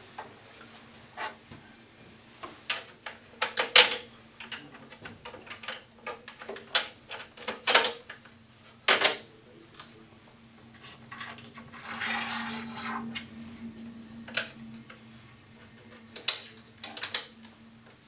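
Small clinks, clicks and knocks of hand-fitted hardware: a bolt, spacer, washer and wing nut being put on and hand-tightened at the corner of an acrylic board, with a longer scraping rustle about twelve seconds in. A faint steady hum underneath.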